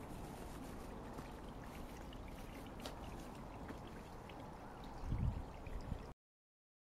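Steady outdoor background hiss with a few faint ticks, and a low rumbling thump about five seconds in; the sound cuts off abruptly about six seconds in.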